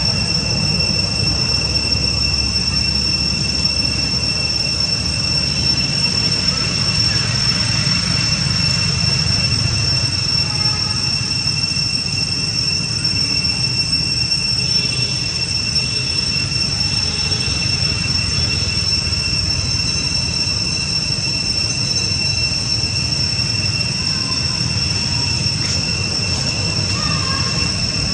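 A steady high-pitched whine that does not change, with a low rumble underneath and a few faint short squeaks here and there.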